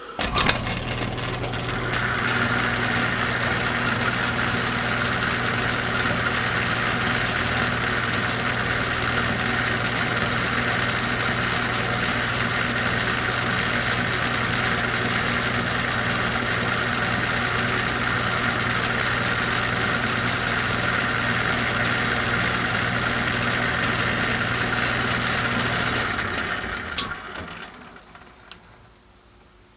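An electric shop machine switched on, running steadily with a hum and a high whine for about 26 seconds, then switched off with a click and winding down.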